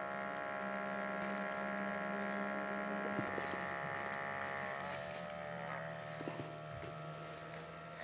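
OUTIN Nano portable espresso machine's pump humming steadily as it pushes hot water through a punctured coffee capsule and extracts an espresso shot. Its pitch dips slightly about five seconds in.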